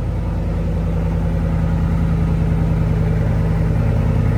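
Chevrolet Silverado gasoline V8 at a cold idle with its 3-inch stainless-steel exhaust cutout open, running loud, deep and steady.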